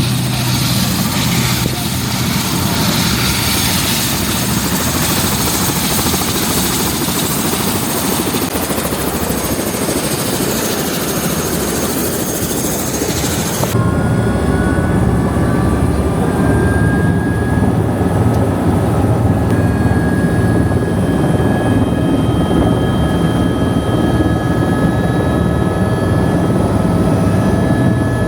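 Helicopter engine and rotor running steadily. About 14 seconds in, the sound changes abruptly from a broad rushing noise to a lower rumble with several steady high whines.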